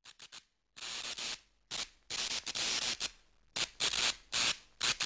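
Television static: choppy bursts of hiss that cut in and out irregularly, a glitching-TV sound effect.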